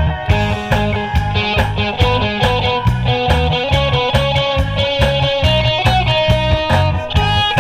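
Live trot music: an electric guitar plays a melodic lead line over a backing with a steady beat.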